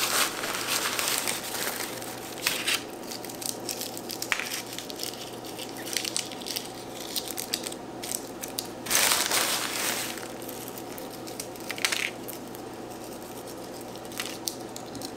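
Crinkly wrapping being handled, crinkling and crackling, with louder bursts at the start and about nine seconds in.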